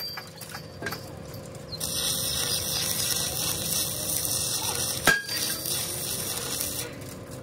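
Metal clanks from work on a stone crusher's steel parts: a sharp ringing strike about a second in and a louder one about five seconds in. A steady hiss starts about two seconds in and stops near the end.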